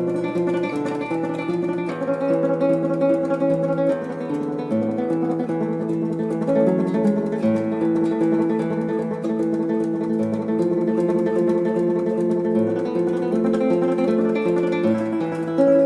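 Background music: acoustic guitar playing a slow piece of held, ringing notes over a low bass note roughly every two and a half seconds.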